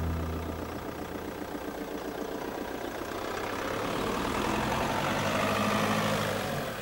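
A car driving past on an open road, its engine and tyre noise swelling to a peak about six seconds in as it passes close by, then falling away.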